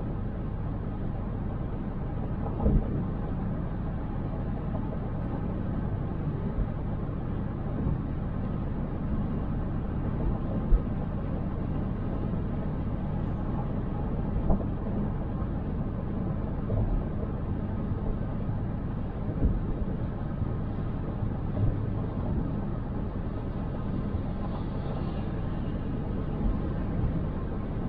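Car driving: steady low road and engine rumble, with a few short thumps.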